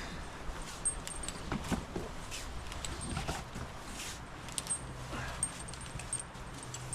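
Irregular light knocks and clicks with faint metallic clinks, like gear being handled.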